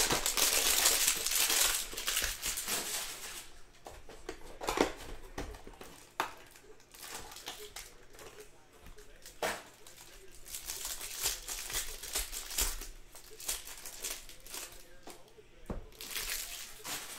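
Basketball card pack wrappers being torn open and crinkled by hand. Noisy crackling comes and goes in bursts, loudest in the first couple of seconds, with a few sharp taps in between.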